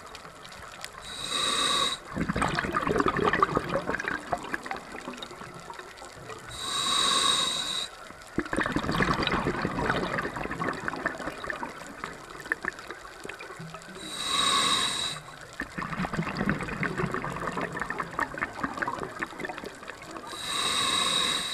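Scuba diver breathing through a regulator underwater: four short inhalations, each a hiss with a high whistle from the regulator, each followed by several seconds of exhaled bubbles crackling. The breaths come about every six and a half seconds.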